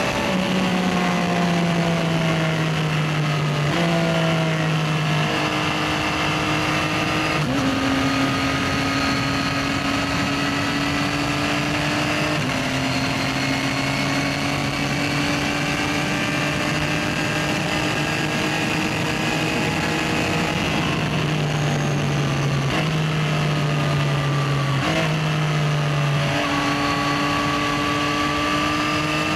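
Yamaha XSR900's 890 cc inline-three engine running under way through city traffic. The engine note drifts up and down with throttle and jumps in pitch at several gear changes, with steady cruising stretches in between.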